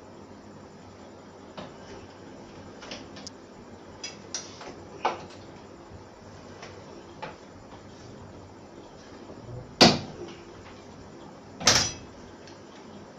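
Old platen letterpress machine working, hand-fed with card blanks: a string of light clicks and taps, then two loud sharp clacks about two seconds apart near the end as the platen closes against the type.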